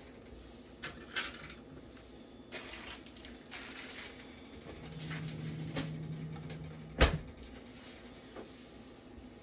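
Kitchen handling noises: a packet's plastic wrapper crinkling and a few light clicks, a low hum for about two seconds, then one loud sharp knock about seven seconds in, like a cupboard door or pot being set down.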